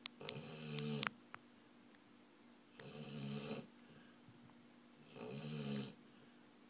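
A dog snoring heavily in its sleep: three snores about two and a half seconds apart, each lasting under a second.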